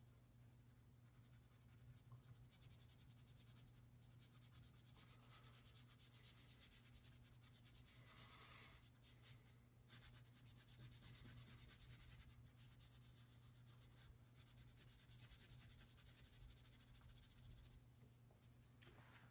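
Faint scratching of a crayon rubbed back and forth on paper, colouring in an area, over a low steady hum.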